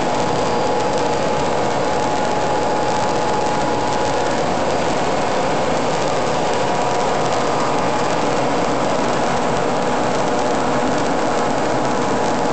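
Refrigeration plant engine-room machinery, compressors and motors, running continuously: a loud, even din with a steady mid-pitched whine in it.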